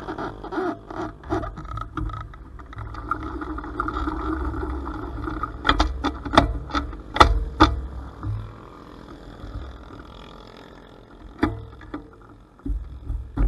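Honda Cub 90's small single-cylinder four-stroke engine running under way, heard from a camera mounted low on the bike with heavy wind rumble on the microphone. Several sharp knocks come around the middle, and the engine falls quieter for a few seconds near the end before picking up again.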